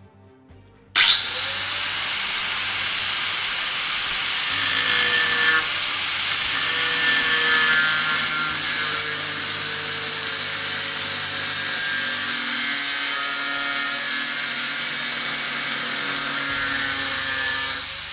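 Angle grinder with a thin abrasive cutting disc starting abruptly about a second in and cutting a notch into a metal part, a loud steady high-pitched grinding. Near the end it is switched off and winds down.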